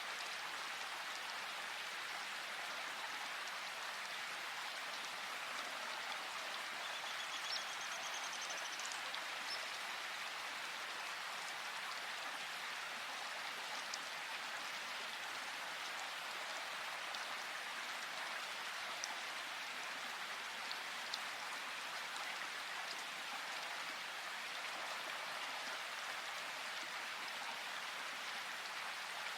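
Steady rain falling in a forest, an even hiss with scattered sharper drip ticks. A faint, brief high-pitched call sounds about seven seconds in.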